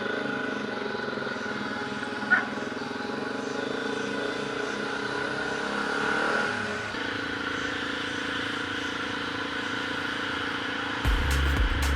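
Single-cylinder dual-sport motorcycle engine running steadily while riding, its pitch shifting about seven seconds in, with one short knock early on. Near the end, music with a strong drum beat comes in over it.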